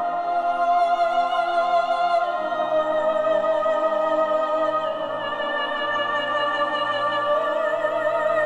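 Background music: long held melodic notes with vibrato over sustained chords, the melody moving to a new note every couple of seconds.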